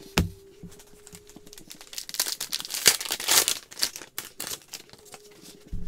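A foil trading-card pack wrapper being torn open and crinkled by hand, a crackling run in the middle. There is a soft knock just after the start and another near the end.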